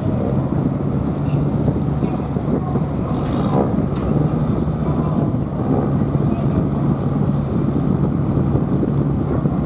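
Small passenger ferry's engine running with a steady low hum as the boat works away from its landing, with wind buffeting the microphone.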